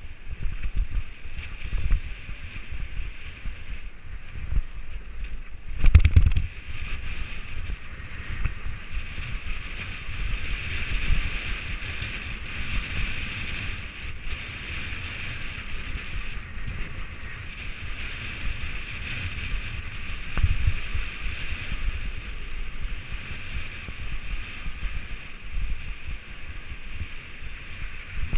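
Mountain bike running fast down a dirt singletrack: tyre rumble and the bike rattling over the ground, with steady wind noise on the microphone. A loud clatter about six seconds in and a smaller knock about twenty seconds in, as the bike jolts over the trail.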